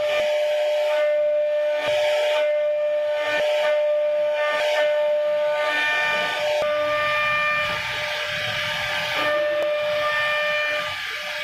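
CNC router spindle running with a steady high-pitched whine while its bit carves grooves into a wooden door panel, with a cutting hiss that swells and fades about once a second. The whine's tones shift a little about two thirds of the way through.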